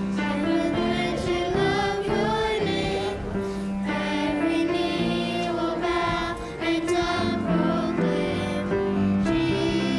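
Church music: voices singing over a steady instrumental accompaniment with long held chords.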